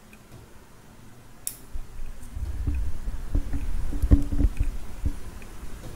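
Handling noise: a sharp click, then low rubbing and rumbling with several knocks, loudest about four seconds in.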